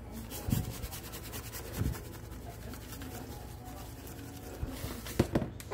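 Raw fish fillets being handled and pressed into cornmeal in a paper-towel-lined pan: a few soft thuds and pats with faint paper rustling, two thuds close together near the end, over a steady low hum.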